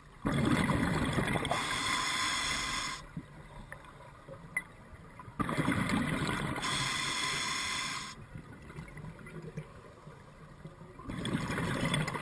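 Scuba diver breathing underwater through a regulator: three bursts of exhaled bubbles, each about three seconds long and coming about every five and a half seconds, with quieter stretches between.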